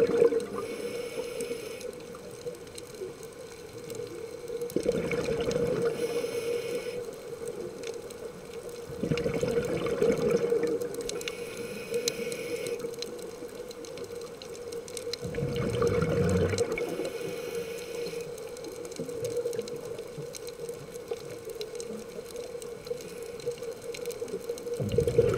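Scuba diver breathing through a regulator underwater: a loud rush of exhaled bubbles about every five to six seconds, with a fainter inhalation hiss between them, over a steady hum.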